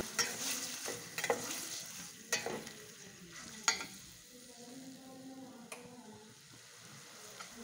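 Onion and garlic paste sizzling in hot oil in a steel pot while a metal spatula stirs it, scraping and knocking against the bottom of the pot. A few sharp scrapes stand out, the loudest about two and a half and nearly four seconds in.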